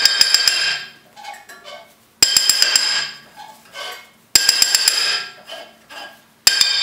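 Hammer striking the back of a Honda S2000's rear brake rotor that is stuck on the hub, knocking it loose. The blows come as four bursts of quick taps about two seconds apart, and the metal rings briefly after each burst.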